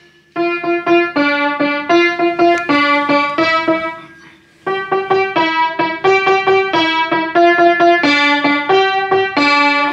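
Child playing single notes on her piano, picking out a simple tune at about three notes a second, with a short pause about four seconds in.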